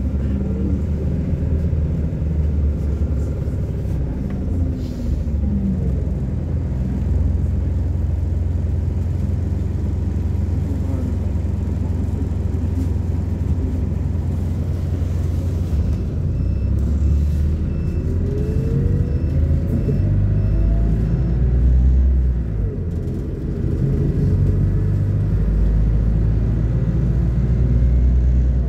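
Inside a moving MAZ-226 diesel bus: the engine and drivetrain run with a low rumble that swells and eases. A whine rises a bit past halfway as the bus accelerates. Over the same stretch a short regular beeping sounds, about two beeps a second for a few seconds.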